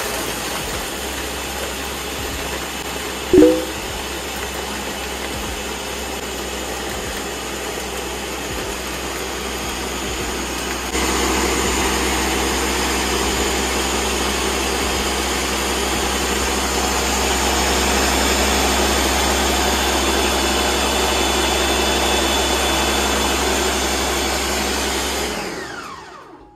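Ninja countertop blender running on high, blending ice, milk and ice cream, a steady loud motor and blade noise that gets louder about eleven seconds in. Near the end the motor is switched off and spins down with a falling whine. A brief louder sound stands out about three and a half seconds in.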